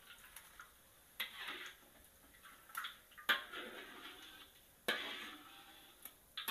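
Wire spider strainer clinking and scraping against a wok about five times while batter-fried pork belly is scooped out of hot oil, each stroke followed by a short fading hiss of oil dripping and sizzling.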